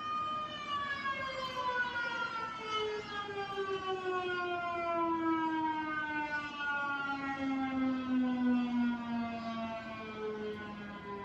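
RM 130 siren sounding its noon blast. A steady tone starts winding down about half a second in, its pitch sliding slowly and evenly lower.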